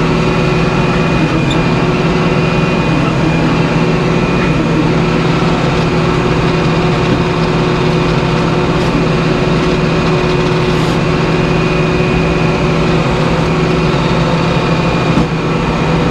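Band sawmill running steadily as its saw head travels along a white pine log, the band blade cutting a board off it over the drone of the mill's engine.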